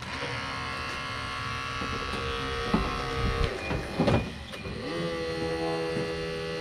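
Hydraulic rescue tool's pump running with a steady motor whine that starts suddenly. Its pitch drops as it comes under load about halfway through, with a few sharp cracks, then settles at a steady lower pitch.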